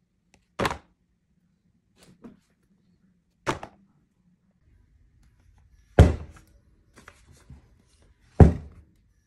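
Resin-crafting supplies being set down on a desk one after another: short sharp knocks, with a plastic resin bottle thudding down near the end. There are five main knocks, the two loudest about six and eight and a half seconds in, plus a few faint ticks between them.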